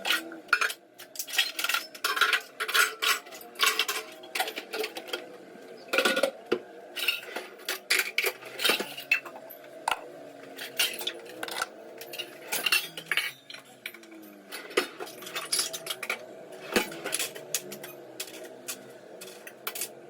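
Kitchen dishes, pots and cutlery clinking and clattering as they are handled and put away, many sharp irregular knocks, over a steady low hum.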